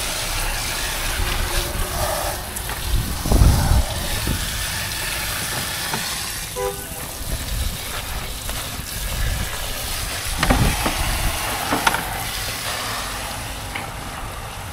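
Wind buffeting a head-mounted action camera's microphone: a steady hiss, with two heavier rumbling gusts about three and a half seconds in and again near the ten-second mark.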